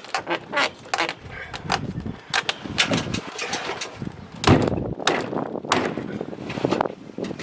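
Irregular knocks, clicks and clatter of hands-on building work, with one heavier thud about four and a half seconds in.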